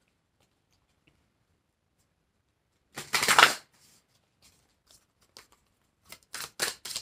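An oracle card deck being shuffled by hand: one short loud rustle about three seconds in, then from about six seconds a run of short crisp swishes, several a second.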